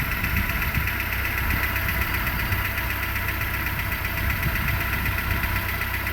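Renault Logan engine idling while it warms up from a cold start, with a fast, light rustling chatter of ticks over the running sound. The chatter appears only when the engine is cold and is now getting quieter; the owner is unsure whether it is a fault or normal for this engine.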